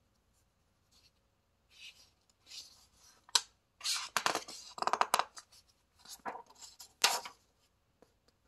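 A picture-book page being turned by hand: paper rustling and crinkling, with a few sharp snaps as the sheet flexes and flips over, loudest in the middle.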